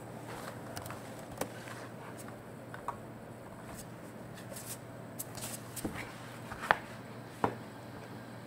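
Faint scattered clicks from a computer mouse being clicked and scrolled, with two sharper clicks near the end, over a steady low hum.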